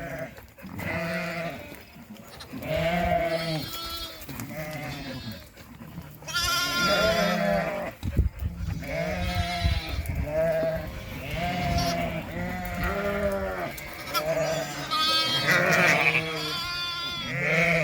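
Ewes and newborn lambs bleating over one another in a string of separate calls, deep ewe bleats mixed with higher, thinner lamb cries. A single knock about eight seconds in.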